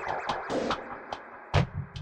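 Electronic outro music with a drum-machine beat: quick clicks and short hits, and a deep kick about one and a half seconds in.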